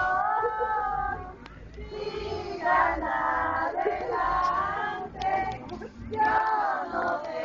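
A group of voices, children among them, singing a Christmas posada song together in phrases a few seconds long, with a short break after the first second or so and another near the end.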